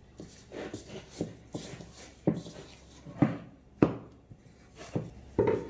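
Risen bread dough being turned out of a stainless-steel bowl by hand and handled on a floured board: a series of irregular soft thuds and knocks.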